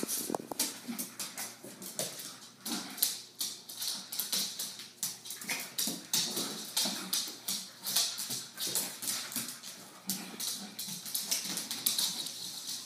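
Two small dogs' claws clicking and skittering rapidly on tile and wooden floors as they chase each other, with low play noises from the dogs mixed in.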